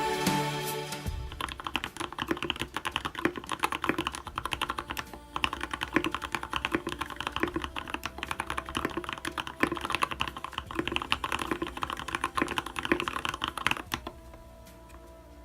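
Fast typing on an Anne Pro mechanical keyboard fitted with /dev/tty MT3 keycaps: a dense, irregular run of key clacks that starts about a second in and stops near the end.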